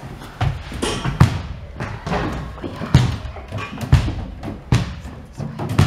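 Irregular thuds and knocks, roughly one a second, from a person's feet and hands striking wooden gym wall bars and the floor as he scrambles out from under a table and climbs along the bars.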